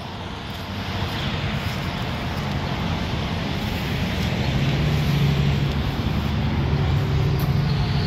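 Steady engine noise, growing gradually louder, with a low steady hum coming up about halfway through.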